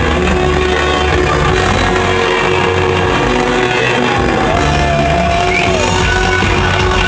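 Russian rock band playing live in a concert hall, loud and dense, with electric guitar. A single wavering pitched line stands out about four and a half seconds in.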